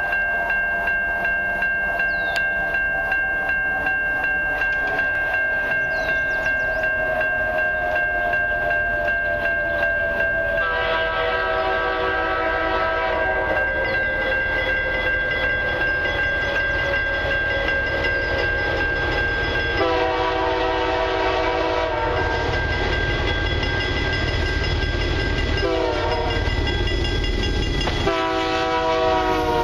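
An approaching CN freight locomotive sounds its horn for the grade crossing: two long blasts, a short one, then a long one. Over it a steady high tone rings for the first two-thirds, and the engine's low rumble and train noise grow as it nears.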